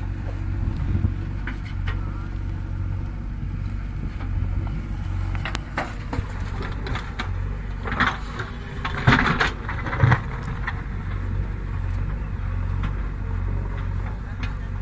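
Diesel engines of a JCB backhoe loader and a tractor running steadily with a low drone. From about six to ten seconds in comes a burst of clattering and knocks as the backhoe bucket dumps earth and stones into the tractor's trolley.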